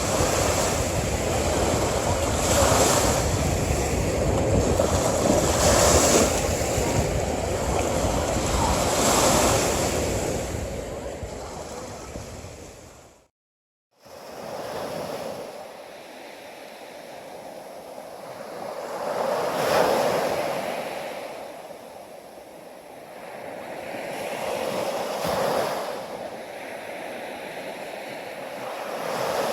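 Sea waves breaking on a beach in slow swells every few seconds, with a low wind rumble on the microphone in the first half. Near the middle the sound cuts out for under a second, then the surf returns quieter, with fewer low tones.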